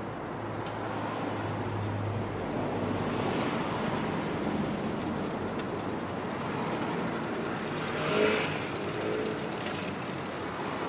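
Steady motor-vehicle noise, with a low hum in the first few seconds and one vehicle passing loudest about eight seconds in.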